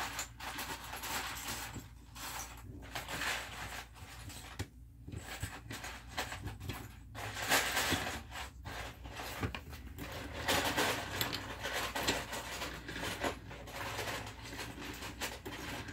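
Plastic Lego pieces being rummaged through and handled: an uneven rustle with occasional small clicks.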